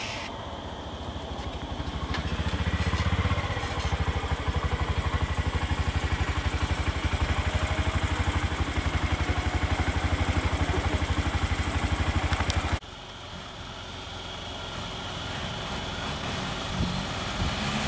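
Truck engine idling close by, a steady, evenly pulsing chug. About two-thirds of the way through it cuts off abruptly to a quieter engine hum that slowly grows louder.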